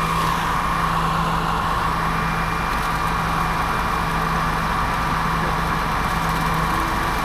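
Heavy truck diesel engine running steadily with an even drone, at an unchanging pitch and level.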